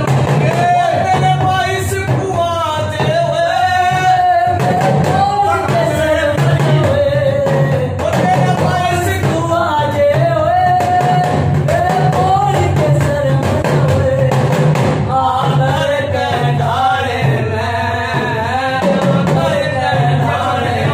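A devotional folk song (bhajan) sung over a steady drum beat.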